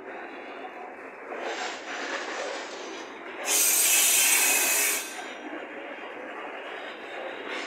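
Freight train of grain hopper wagons rolling slowly past, wheels and couplings giving a steady rolling clatter. About three and a half seconds in, a loud high screech of wheels against the rail rises over it for about a second and a half, then drops back.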